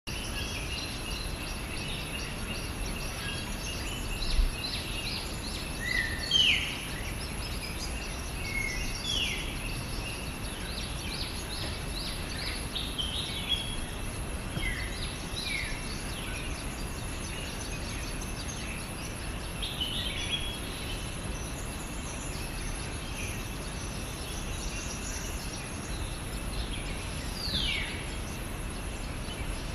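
Forest ambience: several birds calling with short sweeping whistles, scattered through the stretch, over a steady high drone. There is a single low thump about four seconds in.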